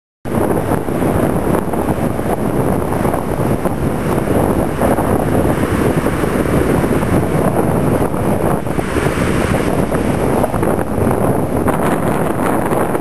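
Ocean surf breaking and washing up a beach in a steady loud rush, with wind buffeting the microphone.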